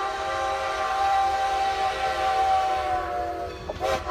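A train horn sounding one long steady blast that sags slightly in pitch and breaks off near the end.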